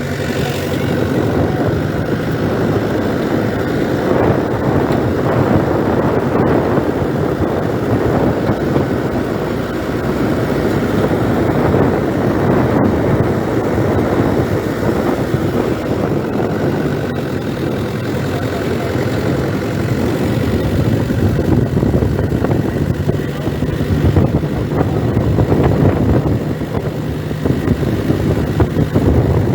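A motor vehicle driving along, its engine and road noise running steadily throughout.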